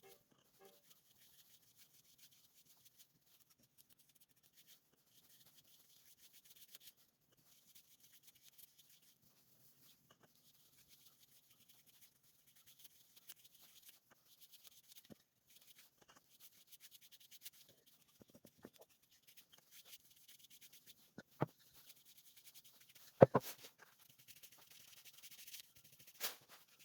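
Faint hand rubbing on a wooden piece, a fine scratchy texture like sandpaper or cloth on wood, with no lathe motor running. A few sharp knocks come in the last third, the loudest about two-thirds through.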